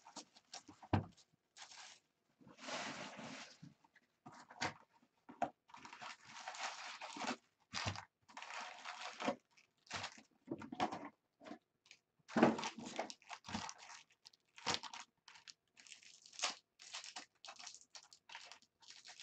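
Cardboard trading-card box being torn open, then foil-wrapped card packs rustling and crinkling as they are handled, in irregular bursts with a few sharp knocks.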